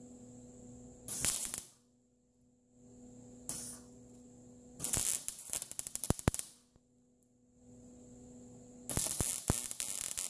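Wire-feed welder arc crackling in four bursts as short welds are laid on a broken push-mower axle bracket: one brief burst about a second in, a very short one, a longer one of about a second and a half, and a last one running to the end. A steady electrical hum sounds between the bursts.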